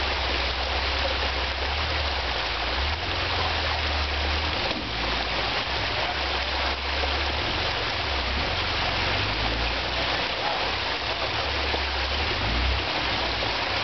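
Steady rushing of water in a rocky creek, with a low rumble underneath that drops out and returns several times.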